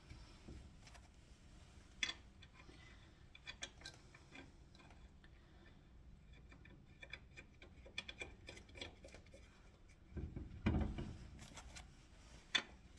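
Faint, scattered light clicks and taps of tools and small metal parts being handled, with a duller, louder knock about ten and a half seconds in.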